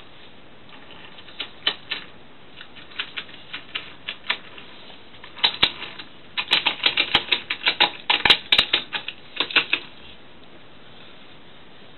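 Small toy train handled and pushed along a wooden window sill, giving irregular clicking and rattling: a few scattered clicks at first, then a dense run of clicks for about four seconds that stops about ten seconds in.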